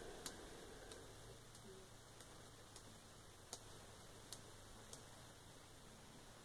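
Near silence with faint ticks, about one every two-thirds of a second: a foam sponge dauber dabbing paint onto paper through potato-sack mesh, stopping about five seconds in.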